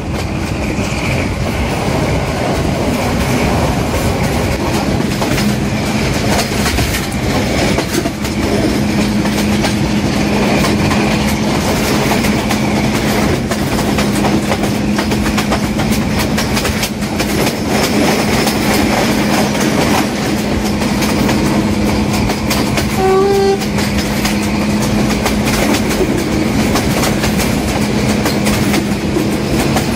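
Passenger train climbing a steep grade, heard from an open carriage window: carriage wheels clattering on the rails over a steady drone from the Class M6 diesel locomotive working hard at the head of the train. A brief horn toot comes about two-thirds of the way through.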